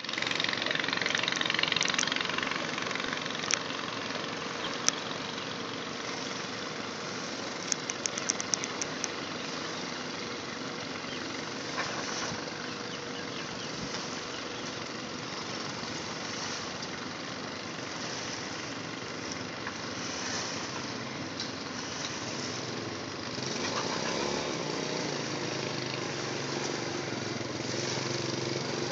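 Small ferry boat's engine running steadily, louder at first. About eight seconds in there is a quick run of clicks, and a few single knocks come through here and there.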